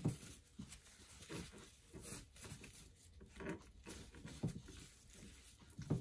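Faint, irregular soft handling sounds of nitrile-gloved hands working raw chicken leg quarters on a wooden cutting board, rubbing in the salt mix and pulling up the skin.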